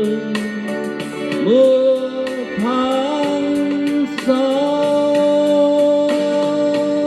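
A Vietnamese ballad sung over a backing band: the singer slides into notes and holds the last one for about four seconds while the accompaniment keeps playing.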